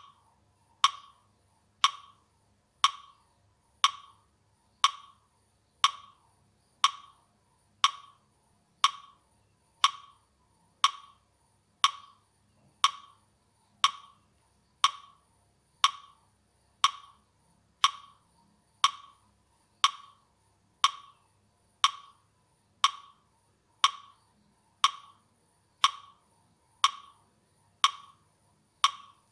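Metronome clicking steadily about once a second, a short sharp tick each time, keeping the count for timed slow breathing.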